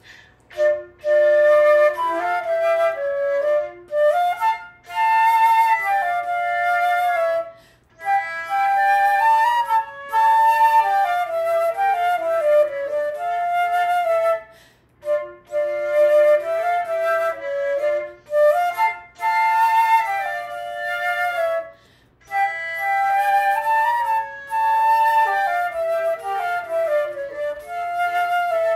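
Solo concert flute playing a practice exercise, a single melody line that moves up and down by steps in phrases of a few seconds, with short pauses between phrases.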